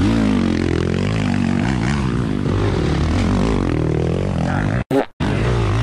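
Honda CRF250RX dirt bike's 250cc four-stroke single revving up and down under repeated throttle blips while working up a steep dirt hill. The sound cuts out completely for a split second near the end.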